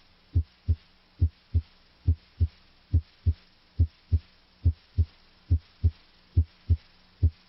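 Normal heart sounds heard through a stethoscope's diaphragm at the apex (mitral area): regular lub-dub pairs, about 70 a minute, with the first sound (S1) louder than the second (S2).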